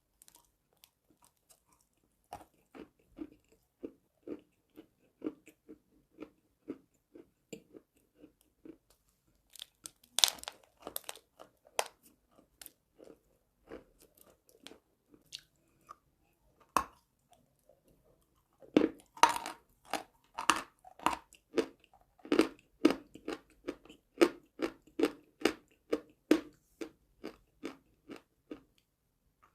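Crunching bites and chewing of chalk, in even chews about twice a second, with loud crisp bites about ten seconds in and again around nineteen to twenty-one seconds.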